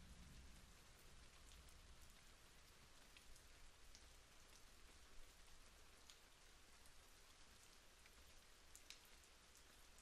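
Faint light rain falling steadily, with single drops ticking now and then over the even patter.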